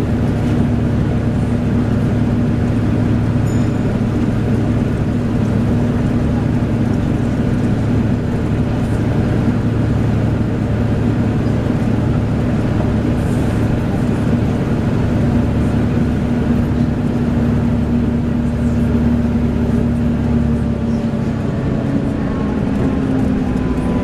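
Volvo B7TL bus's six-cylinder diesel engine and its hoover-like cooling fan, heard from inside the moving bus as a steady drone; near the end the pitch rises slightly.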